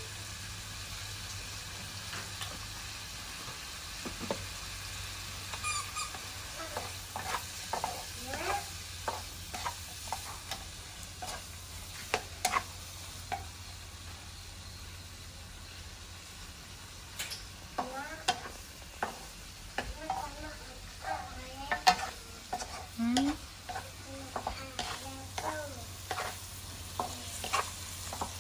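Shrimp and diced carrot sizzling in a nonstick wok on a portable gas burner, with a steady hiss. A wooden spatula scrapes and taps against the pan in bursts as the food is stirred.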